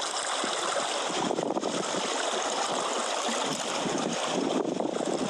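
Water washing against shoreline rocks: a steady rushing noise with no single splash standing out.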